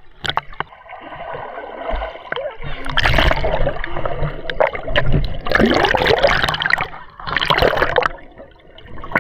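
Seawater splashing and gurgling around the microphone, with three loud surges of sloshing about three, five and a half, and seven and a half seconds in.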